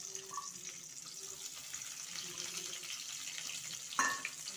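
Onion chunks, garlic and green chillies sizzling steadily in hot oil in a frying pan, with a short knock about four seconds in.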